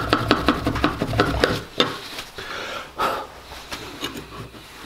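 Gloved hands scrubbing metal nameplates with a cloth and cleaner on a wooden workbench: quick back-and-forth rubbing strokes, about six a second, for a second and a half. Then a few scattered taps and knocks as the plates are handled and set down.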